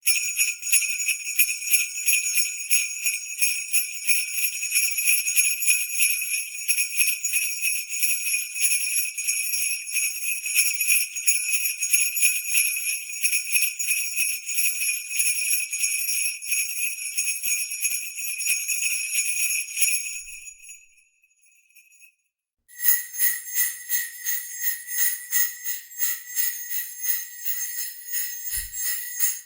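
Jingle bells shaken continuously for about twenty seconds before dying away. After a short silence, a second run of jingle bells starts, ringing on a different set of tones and shaken in a rapid, even rhythm.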